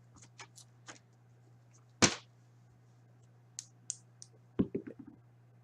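A twelve-sided die rolled and clattering on a tabletop: scattered light clicks, one sharp knock about two seconds in, and a quick run of knocks near the end.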